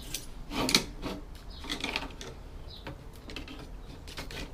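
Scattered clicks, clacks and short scrapes of hand tools and metal parts being worked while a computer motherboard is taken apart, with the loudest clack about three quarters of a second in.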